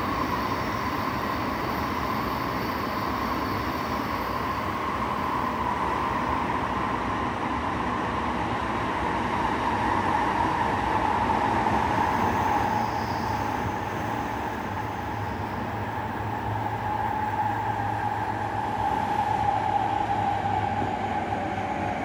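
Tsukuba Express TX-2000 series electric train running, heard inside the passenger car: steady running noise with a motor whine that slowly falls in pitch as the train slows on its approach to a station.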